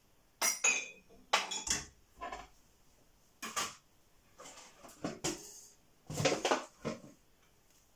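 Kitchen items being handled: a run of separate clattering knocks and clinks of dishes and utensils, with short quiet gaps between them.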